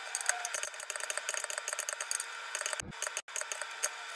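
Knife chopping red onion on a wooden cutting board: a quick run of sharp taps and scrapes of the blade on the board, with a low thump about three seconds in.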